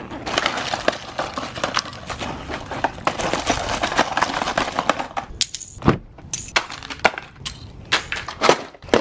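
Fishing lures in hard plastic clamshell packages rattling as they are shaken out of a zippered soft bait bag and clattering onto concrete. A dense jumble for about five seconds, then a few separate clacks as the last packages drop.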